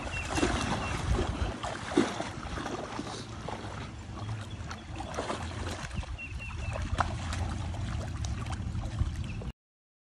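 Water splashing and sloshing as a tiger and a dog wade through a shallow pond, with scattered sharp splashes over a low rumble. It cuts off suddenly about nine and a half seconds in.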